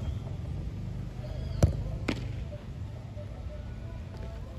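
Football kicked on an artificial-turf pitch: a sharp thump about a second and a half in, then a fainter one half a second later, over a low steady rumble.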